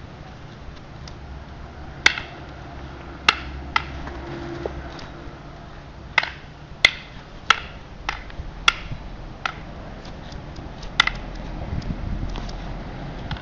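Rattan arnis sticks clacking against each other in a Balintawak partner drill, strikes met by stick blocks. About ten sharp clacks come at irregular intervals, most closely bunched near the middle.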